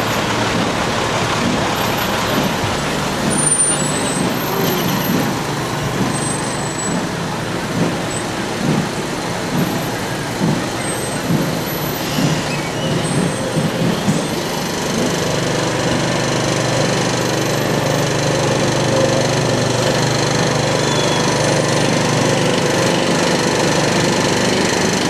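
Heavy diesel truck engine running steadily at low revs, a low continuous hum.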